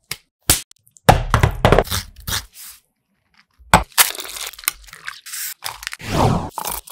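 Close-miked food-prep sounds: sharp cracks and a dense crackling about a second in, then dried red chillies clattering into a glass bowl and a steel mixer-grinder jar.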